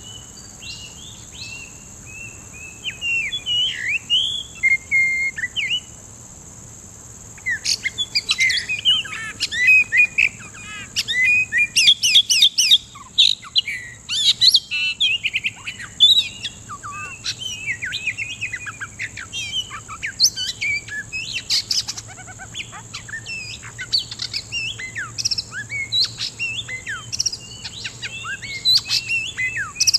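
Oriental magpie-robin singing a long, varied run of clear whistled notes, rising and falling slurs, and chattering phrases. There is a brief pause about six seconds in. A steady high-pitched hiss runs underneath.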